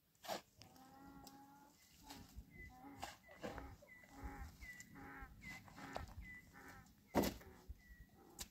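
Farm animal calling in a string of short pitched calls, about one every half second to second, with two sharp knocks, the louder one about seven seconds in.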